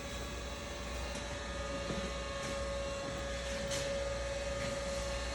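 Surface grinder running with its freshly dressed grinding wheel spinning: a steady low hum with one steady mid-pitched whine.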